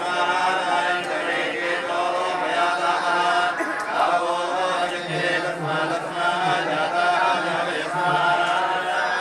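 A group of priests chanting mantras together for a homa fire offering, an unbroken recitation in unison.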